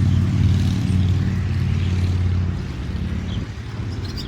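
Motor vehicle engine running with a steady low hum, easing off somewhat about two and a half seconds in.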